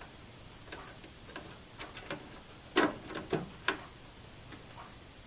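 A string of short clicks and light knocks from computer case hardware being handled and fitted, loudest in the middle, with a couple of sharper ones close together.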